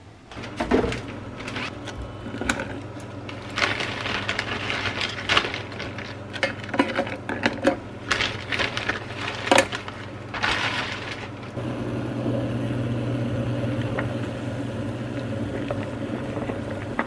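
Metal ladle knocking and scraping against a stainless steel saucepan while mashing nurungji (scorched rice crust) in water for porridge. About two thirds of the way in the clinks stop and give way to a steady hum as the pot boils.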